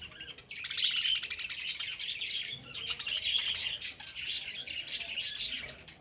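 A flock of lovebirds chattering: a dense run of rapid, high chirps with a brief lull about half a second in.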